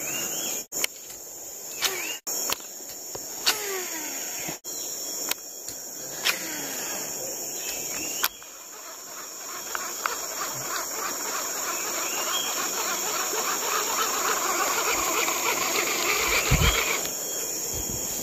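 Steady high-pitched insect chorus, with sharp clicks and knocks scattered through the first half. From about eight seconds in, a dense rapid ticking gradually grows louder.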